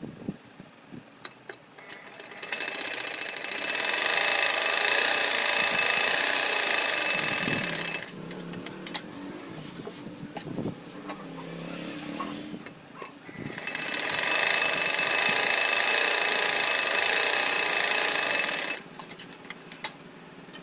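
Sewing machine stitching in two long runs of about six and five seconds, each picking up speed over a second or two before running steadily, with clicks and fabric handling in the pause between.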